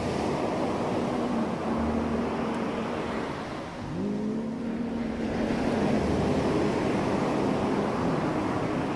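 Ocean surf washing in, swelling louder about halfway through, over soft sustained synth chords that shift up to a new chord about four seconds in.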